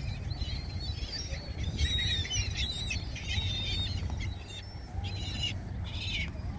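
A flock of gulls calling in short, high, repeated cries, bunched about two seconds in and again near the end, over a low steady rumble.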